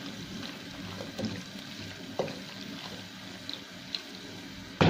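Wooden spatula stirring chopped vegetables and potato curry in a pot: soft, wet stirring with a few light scrapes against the pot, and a louder knock near the end.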